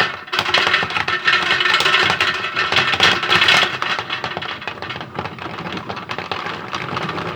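Toy washing machine running with hard objects rattling and clattering in its drum, a dense run of rapid knocks that is loudest over the first few seconds and then eases a little.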